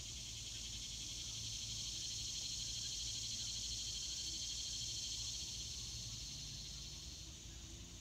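Insects droning: a steady high buzz that swells to its loudest in the middle and fades away near the end.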